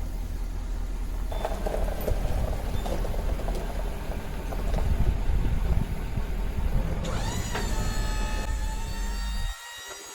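A vehicle engine running with a steady low rumble. About seven seconds in, pitched musical tones come in over it, and the sound cuts off sharply near the end.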